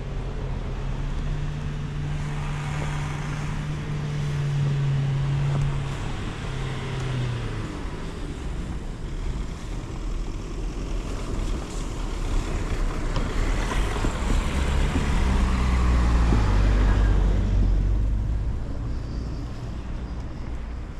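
Motor vehicles passing on a snow-covered street: a steady engine hum in the first few seconds, then a heavier vehicle's deep rumble that builds, is loudest about three-quarters of the way through, and fades.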